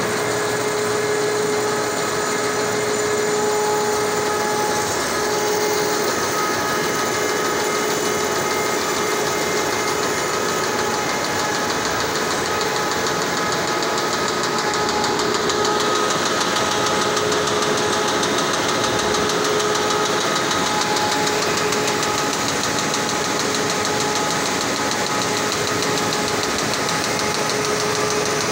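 Hunkeler paper-finishing line running steadily at about 70 metres a minute, feeding a web of paper through its perforating, folding and cutting sections: a continuous, rapid machine clatter with a few steady humming tones.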